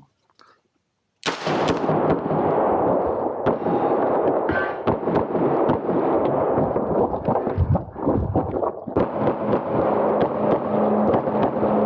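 Pistol shots fired in quick succession while a shooter runs an action-pistol stage, starting about a second in. Many sharp reports come a few per second at uneven spacing, over continuous loud noise.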